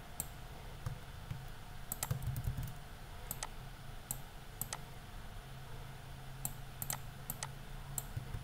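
Computer mouse clicking: a scattering of sharp single and doubled clicks over a faint low hum.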